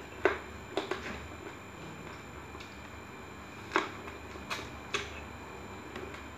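Close mouth sounds of eating stewed eggplant: about six short, sharp smacks and sucking clicks, spread out between quiet chewing.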